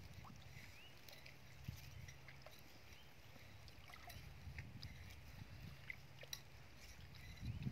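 Faint sloshing of shallow muddy water as a person wades and feels through it, with scattered small ticks.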